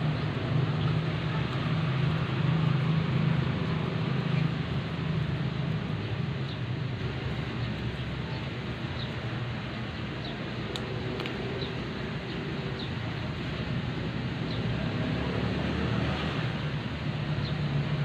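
A steady low mechanical hum and rumble over a noisy background, with a few faint short high chirps.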